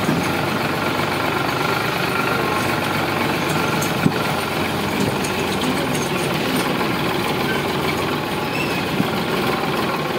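Sonalika DI 745 tractor's diesel engine running steadily while driving, heard from the driver's seat, with a sharp click about four seconds in and another near the end.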